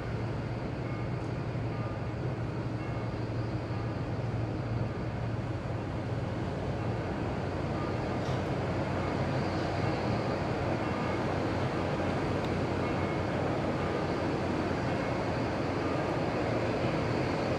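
Steady mechanical rumble with a constant low hum, the sound of running machinery with no distinct events.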